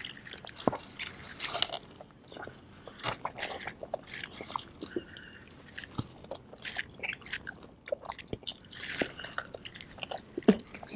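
Two people eating chicken wings with their mouths: irregular wet chewing, biting and smacking as meat is worked off the bones.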